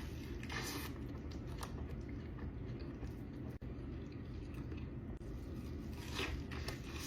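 Close-miked chewing and biting of a person eating, with a short crunchy bite about half a second in and another about six seconds in, over steady low background noise.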